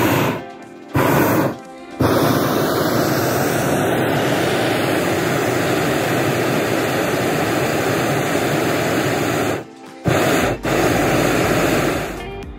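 Hot air balloon's propane burner firing: a loud, steady rushing roar, broken by short pauses twice in the first two seconds and once near ten seconds, easing off near the end.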